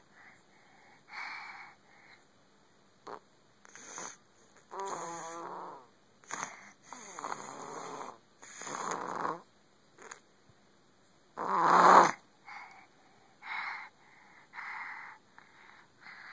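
A sleeping baby snoring: an irregular run of snoring breaths, some short snorts and some a second or more long with a rattling buzz. The loudest is about twelve seconds in.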